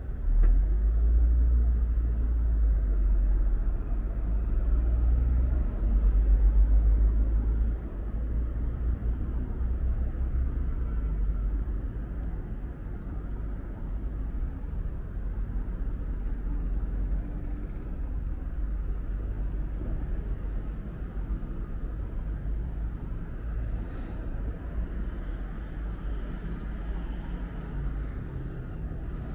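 City street traffic passing steadily along a busy road, with a heavy low rumble that is loudest for the first eight seconds or so and then eases.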